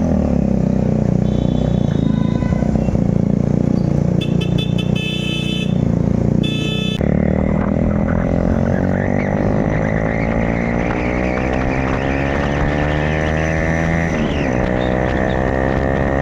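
Motorcycle with a loud exhaust, running in town traffic while vehicle horns honk several times in the first seven seconds. It then accelerates hard, the exhaust note rising steadily, dropping at a gear change about fourteen seconds in, and rising again.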